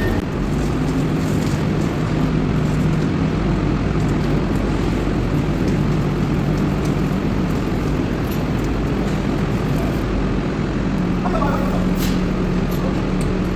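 Large diesel engine of heavy vehicle running steadily over road noise, its low hum stepping up and down in pitch a few times as the load or revs change.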